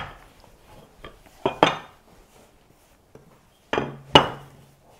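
Wooden rolling pin knocking against a stone countertop as dough is rolled out. Two short knocks come about one and a half seconds in, and a louder pair with a brief ring comes near the end.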